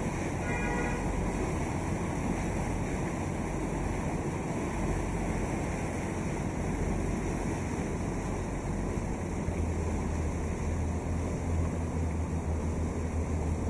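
A riverboat's engine runs steadily under the wash of water and wind buffeting the microphone. A low hum grows louder about nine seconds in.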